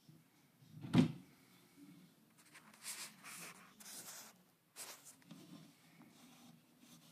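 A single sharp knock about a second in, then a few seconds of dry rustling and scraping in bursts, with another click near the end.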